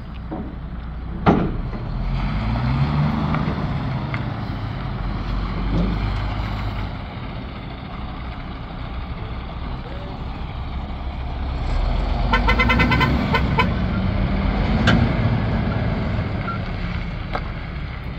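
2013 MAN TGX 480 tractor unit's 12.4-litre six-cylinder diesel engine running as the truck manoeuvres, its note rising as it pulls away about two seconds in and again about twelve seconds in. A short sharp sound about a second in is the loudest moment.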